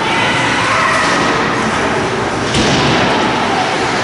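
A single thud against the ice rink's boards and glass about two and a half seconds in, from a puck or player striking them, over steady arena crowd noise with scattered voices.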